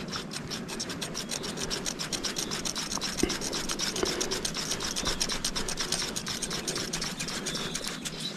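A fly reel's click-and-pawl mechanism ratcheting in a fast, even run of clicks while a hooked fish is played on the line. The clicking stops near the end.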